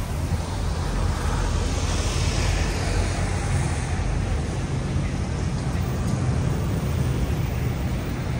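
Steady rumble of road traffic, with the low drone of vehicle engines running.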